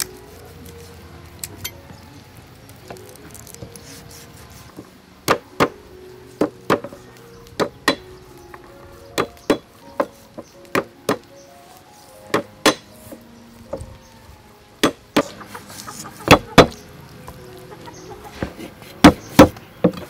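Meat cleaver chopping raw chicken drumsticks on a wooden chopping board: sharp chops, often in quick pairs, starting about five seconds in and coming every second or so, with the loudest strokes near the end.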